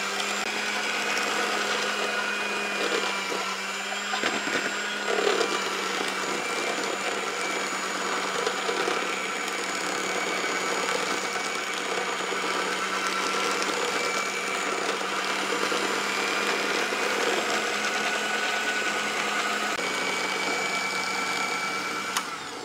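Electric hand mixer running steadily, its beaters whipping a thick ice cream batter in a plastic basin until the batter has risen. The motor sound cuts off near the end.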